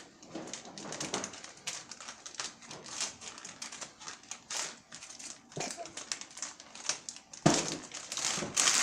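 Stiff plastic toy packaging being cut with scissors and handled: a run of rapid crackling clicks and crinkles, busiest and loudest near the end.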